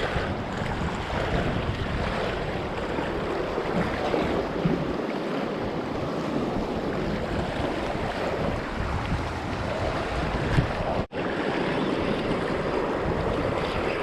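Sea waves washing against shore rocks, with wind buffeting the microphone; the sound cuts out for an instant about eleven seconds in.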